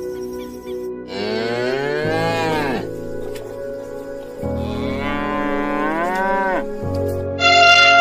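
Cow mooing twice, each a long call that rises and then falls in pitch, over background music. Near the end a louder, higher call that falls in pitch begins.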